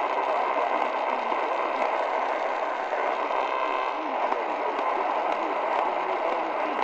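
Retekess TR103 pocket radio's small speaker playing a weak, distant daytime AM station on 600 kHz: steady static hiss with a faint announcer's voice just audible underneath, a signal at the edge of reception.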